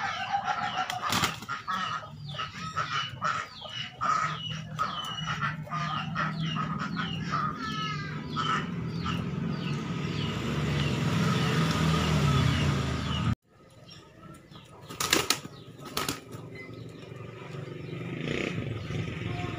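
A gamecock's wings beating in quick, repeated bursts as it leaps and strikes at a hanging target, with sharp knocks among the flaps. A low engine hum builds behind it past the middle. The sound cuts out abruptly about two-thirds of the way through, followed by a few more sharp knocks.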